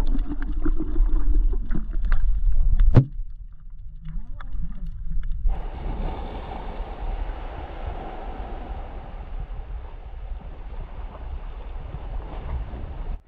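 Muffled low rumble and clicks of a camera microphone under seawater, cutting off about three seconds in. After a short lull comes a steady hiss of waves washing over shallow rocks.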